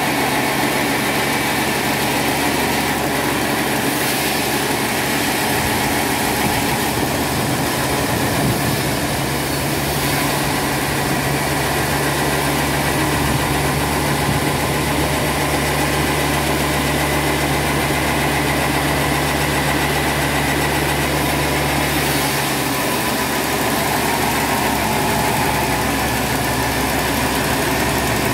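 Log band sawmill running steadily. Its sound turns deeper and heavier from about five seconds in until a few seconds before the end, while the blade cuts lengthwise through a large log.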